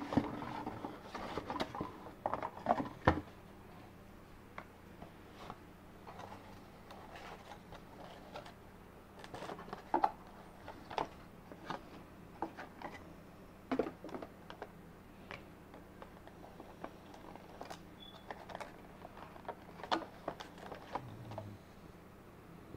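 Cardboard box and plastic packaging being handled while a small gadget is unpacked: scattered rustles, clicks and taps, busiest in the first few seconds, with the loudest knock about three seconds in.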